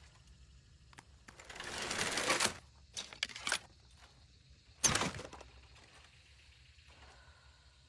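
Crossbow sounds: a run of rapid mechanical clicking that grows louder for about a second, then a few separate clicks. About five seconds in comes one sharp snap with a short ring.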